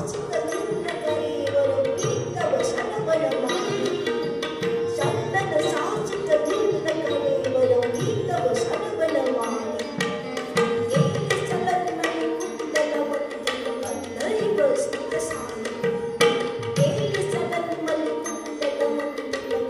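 Live Indian classical dance music: a gliding melody over a steady drone note, with hand-drum strokes and sharp percussive strikes.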